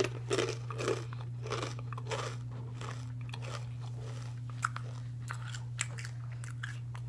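A person chewing Takis rolled corn tortilla chips with the mouth closed: a run of crisp crunches, loudest in the first second, thinning to fainter, sparser chewing crunches.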